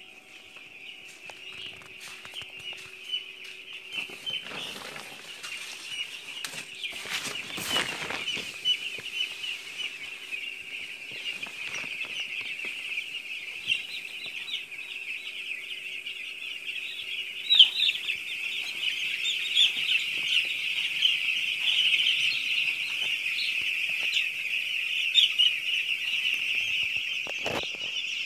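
Hundreds of young chicks peeping together in a dense, continuous high chorus that grows louder as it goes on. There are a few knocks about four and eight seconds in.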